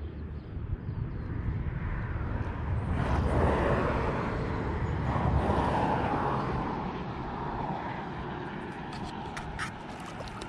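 A vehicle passing close by, its noise swelling for a few seconds and then fading, with a few sharp clicks near the end.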